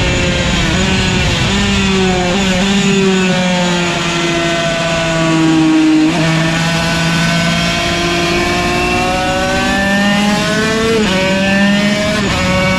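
Yamaha TZ125 single-cylinder two-stroke racing engine at high revs under way, its pitch climbing and then dropping sharply twice, about six and eleven seconds in.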